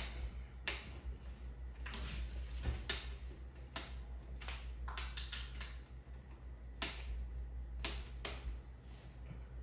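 Allen key turning a small screw into a flat-pack bookcase panel by hand: a series of sharp, irregular clicks, about one a second, with a quick cluster of several about halfway through.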